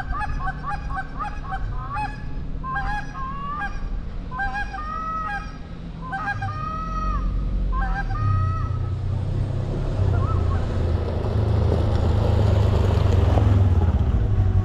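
A flock of geese honking: a quick run of calls at first, then single drawn-out honks that die away about eight seconds in. A low steady rumble then builds up toward the end.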